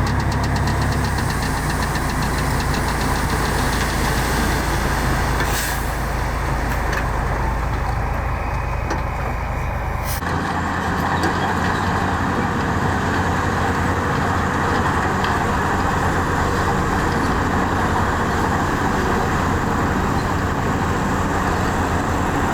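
Heavy diesel engines of earthmoving machinery, bulldozer and dump truck, running steadily under work. The sound changes abruptly about ten seconds in.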